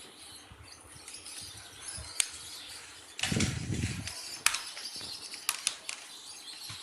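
Sharp plastic clicks and handling noise as the fold-out stand legs under a Zebronics keyboard are flipped up. There are several separate snaps and a short rustle of handling about three seconds in.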